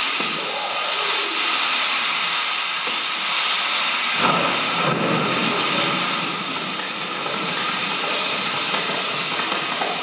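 A loud, steady hissing noise, with a fuller, lower rushing layer joining about four seconds in.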